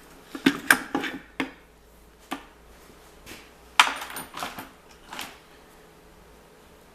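Metal clanks and knocks of gear shafts and gears being worked out of a JL-S170 manual gearbox case: a quick run of sharp knocks in the first second and a half, a single louder clank a little before four seconds in, then a few lighter knocks.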